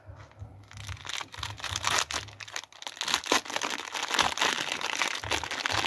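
A small clear plastic bag crinkling as hands handle and open it. It makes a dense run of irregular crackles that gets busier after about the first second.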